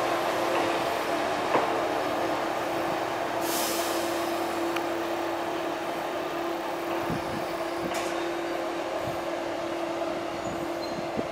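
KiHa 11 diesel railcar pulling slowly into the station, its diesel engine giving a steady hum over the rumble of the wheels. There is a short hiss about three and a half seconds in, and a few clicks from the running gear.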